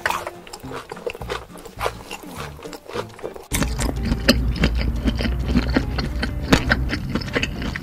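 Cartoon eating sound effects: chewing and munching over background music. The chewing gets louder and denser about three and a half seconds in.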